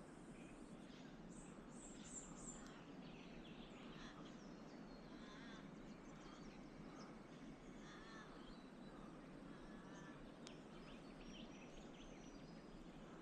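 Faint bird calls over quiet outdoor background noise: a few short high chirps, then several repeated call notes scattered through the middle.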